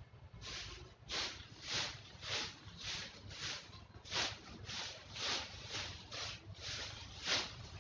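Rhythmic swishing strokes, about two a second, starting about half a second in: dry fallen leaves and litter being swept up by hand in a garden bed.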